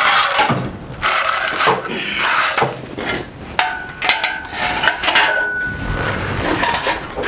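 Irregular metallic clanking and rattling from a wheeled engine hoist as a steel frame and air compressor hanging from it are pushed and shifted. A short, high metallic ring sounds a few times around the middle.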